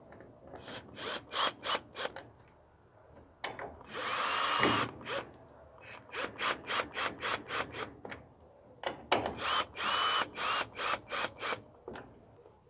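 Cordless drill-driver driving screws into the lid of a plastic electrical box: two short runs of the motor, each with a rising whine, between series of sharp clicks at about four a second.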